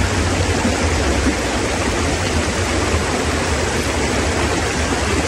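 Steady rushing of river water flowing over a rocky bed, with a low rumble underneath.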